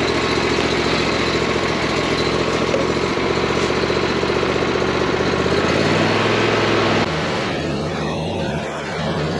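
DR Pro XL30 walk-behind brush cutter's engine running steadily just after a choked start. About seven seconds in the sound changes abruptly to a smoother, quieter engine hum.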